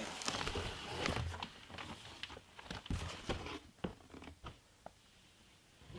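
Packaging being handled and pulled at: rustling and crinkling with scattered clicks and light knocks, busiest over the first couple of seconds and thinning out to a few ticks.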